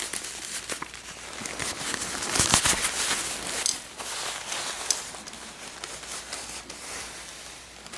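Close-up crackling and rustling handling noise right at the microphone, with many small clicks and rubs, loudest about two and a half seconds in.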